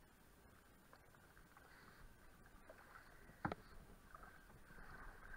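Quiet paddling in a canoe on a calm river: faint water sounds from the paddle, with one short sharp knock about three and a half seconds in.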